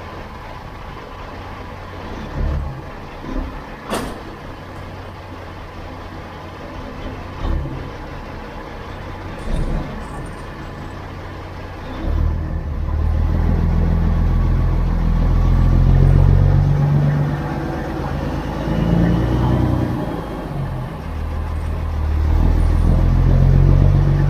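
Kenworth W900 semi truck's diesel engine idling, with a few sharp clicks and knocks. About halfway through the engine is throttled up and pulls under load in swelling waves as the truck starts moving.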